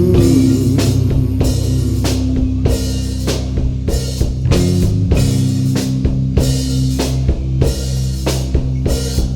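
Live stoner rock band playing an instrumental passage: held guitar and bass notes over a drum kit keeping a steady beat.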